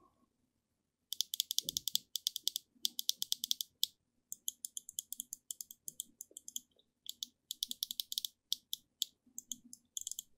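Small mouse micro switches on the bare circuit board of an Xtrfy M42 wireless mouse, clicked rapidly by finger in several quick runs from about a second in, with short pauses between runs. The DPI-button switch is a different switch from the side-button switches, with a different click, which the owner suspects is a cheaper part.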